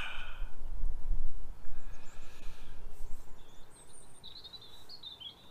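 A low rumble, loudest in the first three seconds, then a small bird chirping and twittering near the end.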